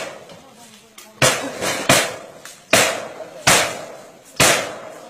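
Corrugated metal fence sheets being struck and wrenched down: a series of sharp bangs, about six at uneven spacing roughly every second, each dying away quickly.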